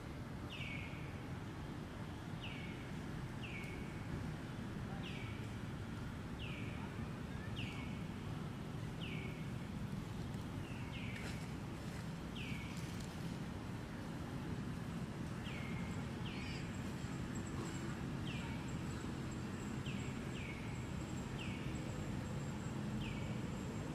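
A bird repeats a short, high call that falls in pitch, about once every second or so, over a steady low outdoor rumble. A faint, steady high tone joins about two-thirds of the way in.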